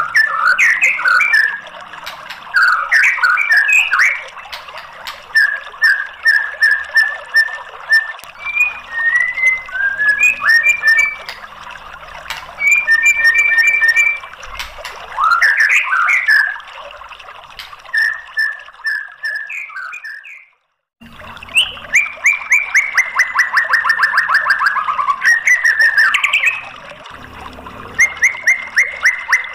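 White-rumped shama (murai batu) singing loud, varied whistled phrases, including runs of evenly repeated notes and fast trills. The song stops for about half a second about two-thirds of the way through, then starts again.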